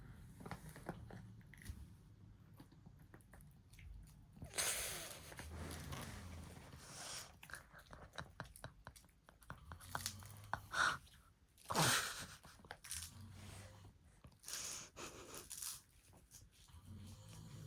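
Chewing and biting on a tug toy during tug-of-war play, with scattered small clicks and a few louder rustling, scuffling bursts.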